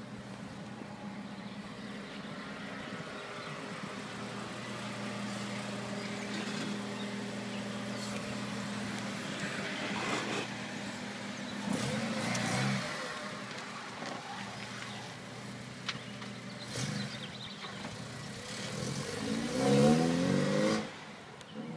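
Acura RSX's 2.0-litre four-cylinder engine running steadily at low revs while the car rolls, then revving up about twelve seconds in, and again louder near the end as it accelerates away.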